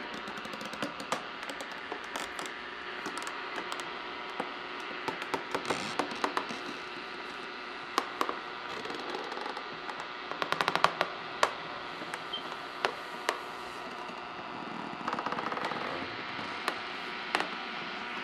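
Vintage tube radios hissing and humming, with sharp clicks and crackles as their knobs are worked, including a quick run of clicks about ten and a half seconds in.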